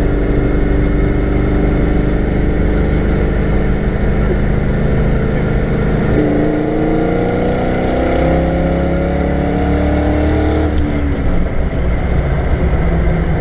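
Ford 5.0 (302) V8 in a Fox-body Mustang running steadily. About six seconds in it is put to full throttle and its pitch climbs for about four seconds in a gear pull, then falls away suddenly as the throttle is lifted.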